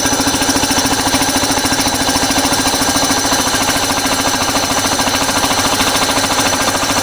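Old home-made piston air compressor, driven by a capacitor-start electric motor, running steadily with a fast, even pulsing as it pumps up pressure in its small tank.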